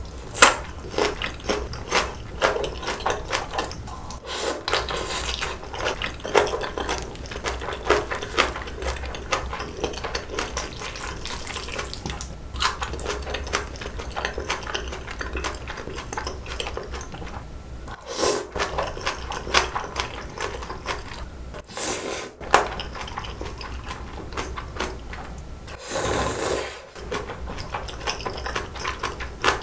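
Close-miked eating sounds: slurping spicy bibim noodles with chopsticks and wet chewing, a continuous run of small smacks and clicks, with a few longer, louder slurps in the second half.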